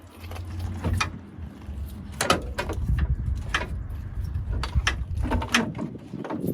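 Irregular knocks and clunks of hard objects being handled, about a dozen, over a low steady rumble.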